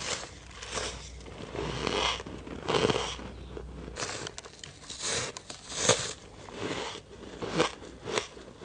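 Ice being bitten and chewed close to the microphone: a run of sharp, crunchy bites, roughly one every half second to a second.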